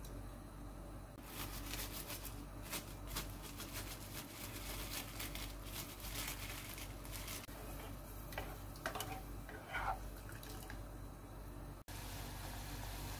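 Metal spoon stirring seasoning into water in a saucepan, with many light clinks and scrapes against the pot. After a cut near the end, there is a steady hiss of the pot bubbling at a boil.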